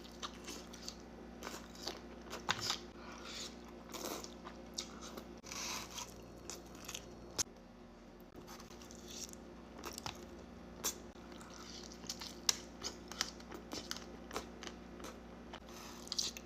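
A person chewing and biting into crispy birria tacos: irregular crunches, several a second, with short pauses between bites.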